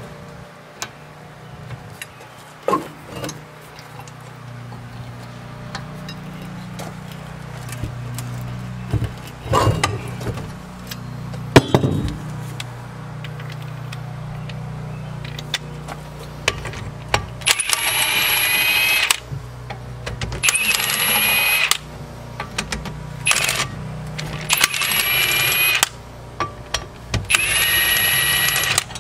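Scattered metal knocks and clinks, one sharp knock near the middle, then four bursts of a handheld power tool running, each about a second and a half long and a few seconds apart, as the bolts of a Chevy Express front wheel hub bearing are spun out.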